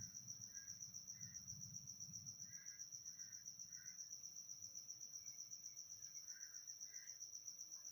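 Near silence: faint room tone with a steady, rapidly pulsing high thin tone, and a few faint soft chirps.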